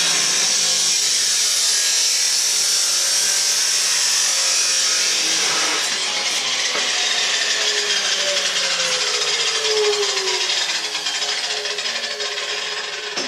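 Abrasive chop saw grinding through 2 1/4-inch steel exhaust pipe, a loud, steady screeching whine. In the second half its pitch slides down and the sound fades as the wheel winds down.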